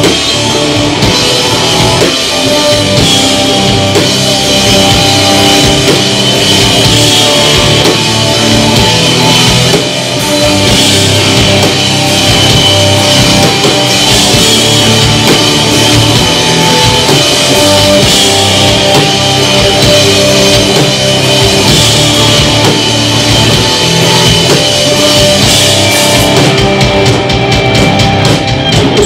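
Live rock band playing an instrumental passage on electric guitars, bass and a drum kit, loud and dense, with sharper drum and cymbal hits near the end.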